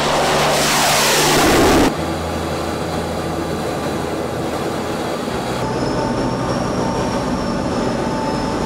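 KF-21 fighter prototype's twin turbofan engines at takeoff power as the jet climbs past, the pitch sweeping down; about two seconds in the sound cuts to a steadier jet rush. Low held music tones run underneath.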